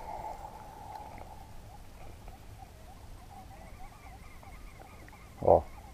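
Faint, irregular squeaky chirping calls from animals, and one short loud thump about five and a half seconds in.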